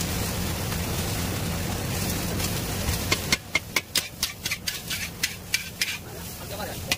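Steady roar of a stall's gas burner under a wok for the first three seconds. Then a metal ladle strikes and scrapes the iron wok in sharp clanks, about four a second, as noodles are stir-fried and tossed.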